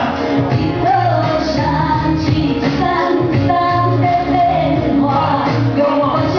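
Song with a female or child singing voice over a steady, rhythmic accompaniment.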